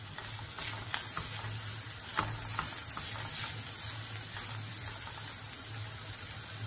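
Onions and spices sizzling in oil in a non-stick wok, with a spatula scraping and clicking against the pan as they are stirred.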